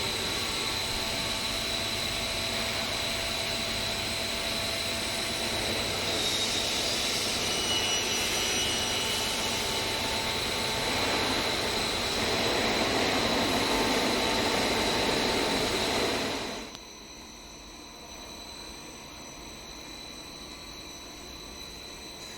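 Steady machinery noise of a plastic net production line running, with a constant high-pitched whine. The noise drops suddenly about 17 seconds in to a quieter steady hum.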